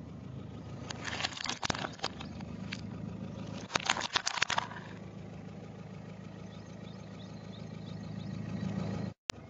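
A car's engine idling steadily while its tyre rolls over a hard plastic peacock toy, which cracks and snaps in two quick clusters, about a second in and again around four seconds in.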